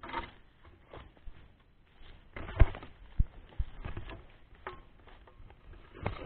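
Footsteps through dry, dead palm fronds and grass, with rustling and uneven thumps, the heaviest about halfway through and near the end.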